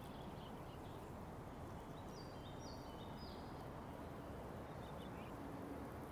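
Steady low background noise with a small songbird singing a quick run of short, high, clear notes about two seconds in, and a few fainter notes near the end.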